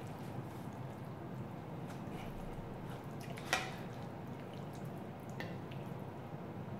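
Slotted plastic spoon stirring and scooping wet ground-beef and vegetable stew in a pan and spooning it onto a plate, with a sharp click of the spoon against the pan about three and a half seconds in and a fainter one later.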